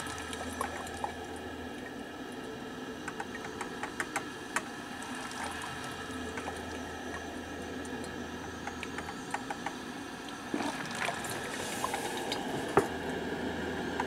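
1985 Black & Decker drip coffee maker brewing a white-vinegar cleaning cycle: steady sound of water heating and bubbling through the machine, with scattered small pops and ticks. It grows a little louder about ten and a half seconds in.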